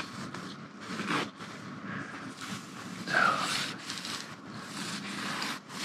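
Old cotton bath towel rubbed back and forth along a 3D-printer linear rail, irregular swishing strokes of cloth on metal, louder about a second in and again around three seconds. The rail is being dried after a soak in mineral spirits that stripped off its shipping grease.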